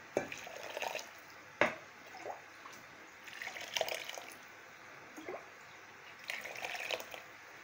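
Water poured from a plastic jug onto grated cabbage in a pot, splashing and trickling in two spells. A single sharp knock comes about one and a half seconds in.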